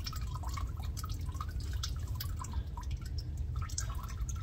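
Used engine oil dripping and trickling off a hand and arm into a plastic drain pan: an irregular patter of drops over a steady low rumble.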